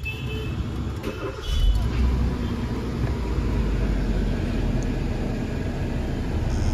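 A parked car's engine idling: a steady low rumble with a hiss over it, growing louder about a second and a half in.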